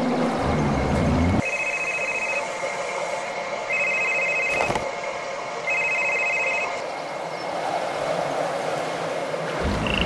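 A lion's growl for the first second or so, then a high trilling ring sounding three times, each about a second long and about two seconds apart.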